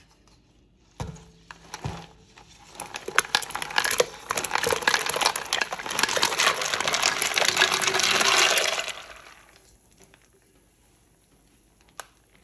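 A knock about a second in, then a load of ice cubes tipped into a stockpot of spiced brine, clattering and splashing for several seconds before fading out. The ice is there to chill the just-boiled brine.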